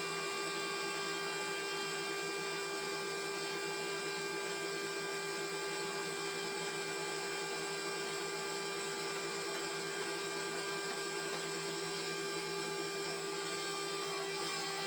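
Sawmill machinery running steadily: an even motor whine that holds the same pitch and loudness throughout, with no cuts or impacts.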